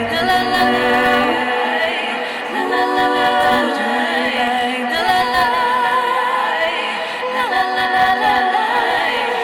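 Several voices singing together in harmony, largely unaccompanied, with long held notes; a low backing sound drops away about a second and a half in.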